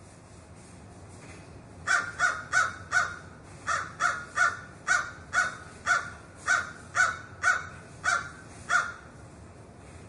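Crow cawing: a run of about fifteen short, harsh caws, roughly two a second, starting about two seconds in and stopping near nine seconds, over a faint steady background hiss.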